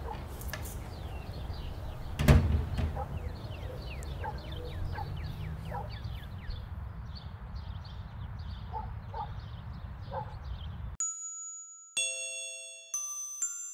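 Outdoor ambience of small birds chirping in quick falling calls over a low background rumble. About two seconds in, the front door shuts with a single loud thump. Near the end the ambience cuts off and high chiming notes begin a tune.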